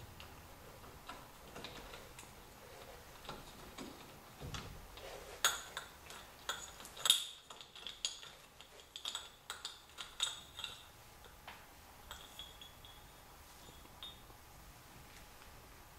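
Metal clinking and tapping as a wrist pin is pushed out of a two-stroke piston with a small socket: faint ticks at first, then a run of sharp metal clinks from about five to eleven seconds in, loudest about seven seconds in.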